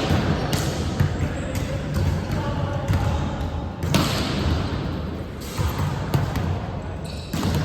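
Volleyball being hit and bouncing in a gym hall: a string of sharp smacks at uneven intervals, the loudest about four seconds in with a long echoing tail. A low murmur of voices runs underneath.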